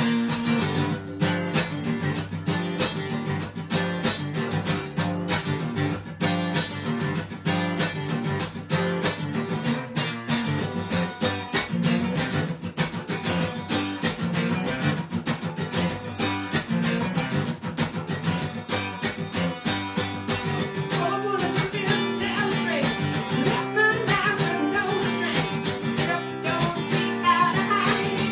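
Acoustic guitar strummed in steady chords, with a man's singing voice coming in over it about twenty seconds in.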